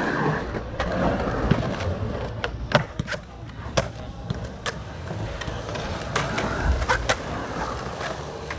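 Skateboard wheels rolling on the concrete of a pool bowl, swelling and fading as the board passes, with sharp clacks of skateboards on concrete scattered through, about a dozen in all.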